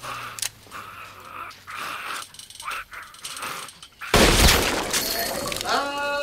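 A zombie groans and snarls at a chain-link fence. About four seconds in, a single revolver shot goes off close by and is the loudest sound; the walker is shot in the head.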